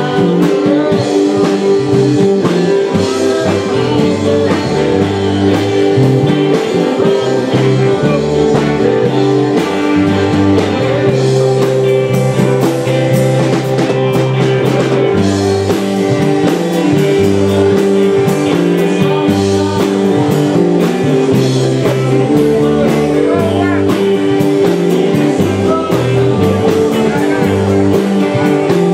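Live rock band playing: a man singing over electric guitars, bass guitar and drums.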